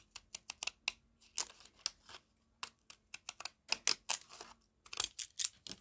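Cheap children's decorative-edge craft scissors cutting through a printed paper piece: a string of short, crisp snips that come in irregular stops and starts, some in quick runs.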